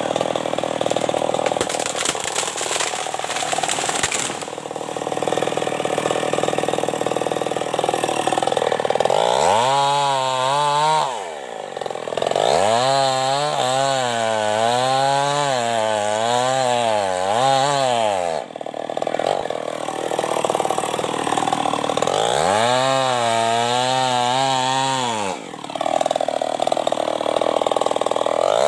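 New West 588 petrol chainsaw running throughout. It is revved up three times for long stretches, its engine pitch wavering up and down, and revs up sharply again at the very end. A short burst of cracking comes about two seconds in.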